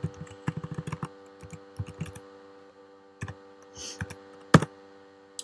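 Typing on a computer keyboard: a quick run of keystrokes in the first two seconds, then a few single key presses, the loudest about four and a half seconds in, over a steady low hum.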